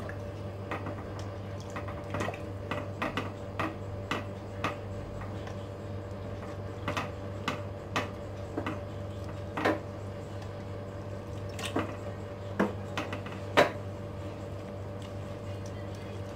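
A hand mixing gram-flour batter with water in an aluminium pot: wet squishing with irregular clicks and knocks against the pot, over a steady low hum.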